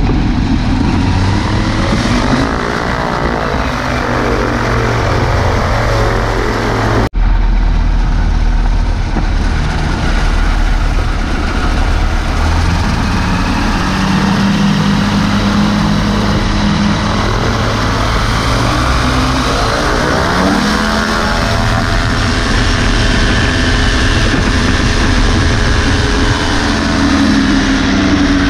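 Pegasus XL-SE microlight trike's engine and pusher propeller running as it taxis on grass, the engine speed rising and falling a few times. The sound breaks off for an instant about seven seconds in.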